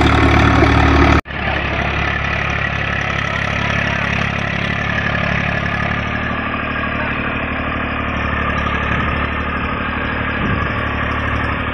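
Eicher 333 tractor's three-cylinder diesel engine running steadily under load, working a 7-foot rotavator off the PTO as it tills. It opens with about a second of louder machinery noise that cuts off abruptly.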